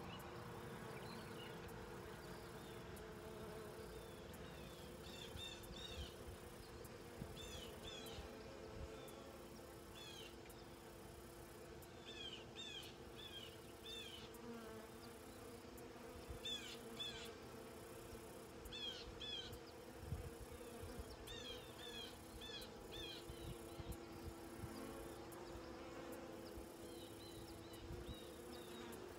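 Honey bees buzzing steadily around an opened hive, a low even drone. Over it come short high chirps in small groups of two to four, repeating every second or two.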